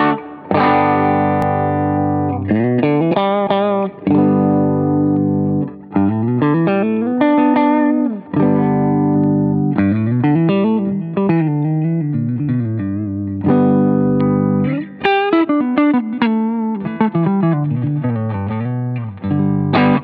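Electric guitar played through a Fulltone Mini Deja Vibe and a Line 6 HX Stomp: struck chords that ring out, and phrases with bends and slides, the notes wavering in a swirling vibe modulation. A few quick, choked strums come near the end.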